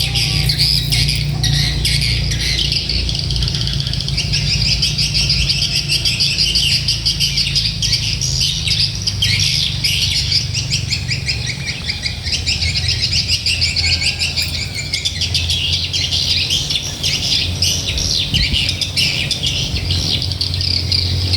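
A sogok ontong, a small sunbird, singing a fast, continuous, high-pitched twittering chatter, over a steady low hum.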